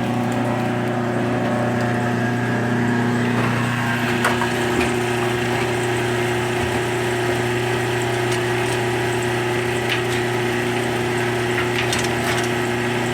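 Woodchip furnace blower fan running with a steady hum, forcing air into the firebox to revive the smouldering coals, with a few sharp ticks over it.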